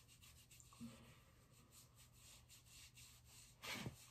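Near silence with faint scratchy rubbing of a cotton pad wiped across the face, and a brief louder rustle near the end.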